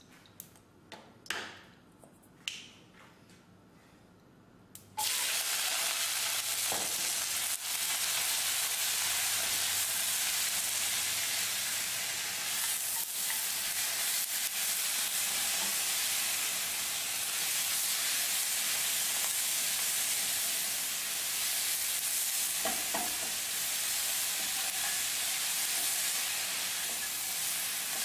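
A few light knocks, then about five seconds in a sudden loud sizzle as a bowl of water morning glory, garlic, chilies and sauces is dumped into very hot oil in a deep frying pan. The vegetables keep sizzling steadily as they are stir-fried, with the scrape of a spatula now and then.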